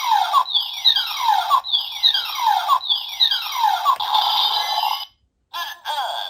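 Electronic sound effect from a DX Neo Decadriver toy transformation belt through its small speaker: four falling synthetic sweeps about a second apart, then a held tone that cuts off suddenly about five seconds in, followed by short electronic tones and clicks.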